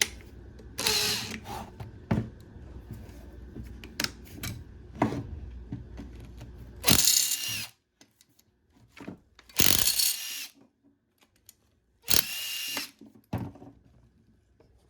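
Cordless power drill/driver run in four short bursts, each about a second long with a steady whine, backing screws out of a two-stroke lawnmower engine's housing, with clicks and knocks of the tool and parts being handled between the bursts.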